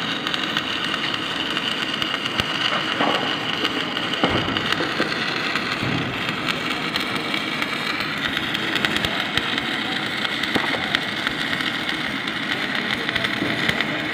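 Stick-welding arc from a 4 mm 309 stainless-steel electrode, crackling and sizzling steadily as the rod burns and lays down a bead.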